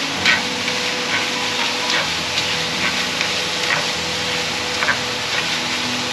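Shrimp and meat sizzling as they stir-fry in a pan, with short scrapes and clinks of the stirring utensil against the pan about once a second. The filling is cooking until it firms up.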